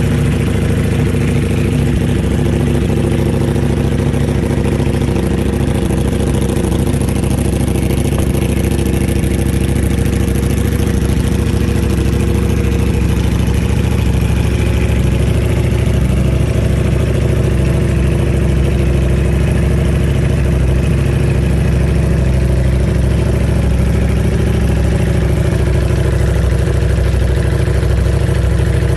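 Ducati Panigale V4 engine idling steadily through an aftermarket exhaust, with an even low rumble.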